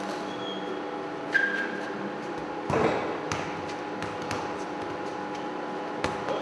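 A football kicked back and forth: a few separate thuds and clicks, the loudest near the middle, over a steady hum. A short squeak comes about a second and a half in.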